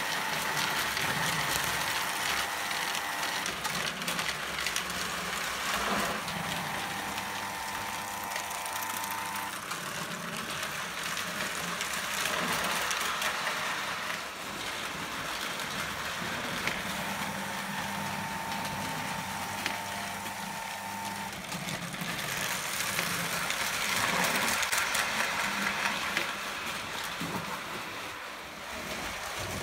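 Prewar Lionel O gauge electric toy trains running on three-rail tinplate track: a steady rumble and clatter of metal wheels. A high steady whine comes and goes several times.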